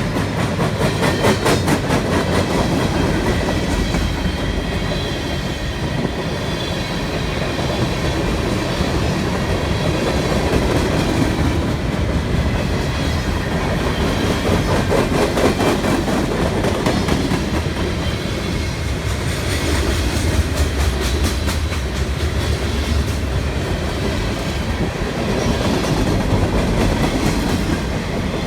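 Long freight train's cars rolling past: a steady rumble with repeated clusters of wheel clatter over the rail joints.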